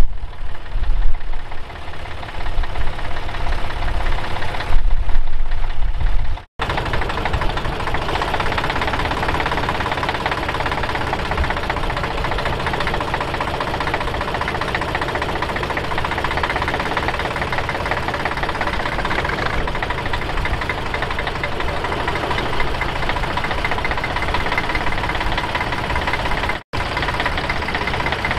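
Bukh Juno diesel tractor engine running under load while pulling a plough, steady after about six seconds. Over the first six seconds heavy gusty rumble, like wind buffeting the microphone, partly covers the engine, and the sound drops out briefly twice.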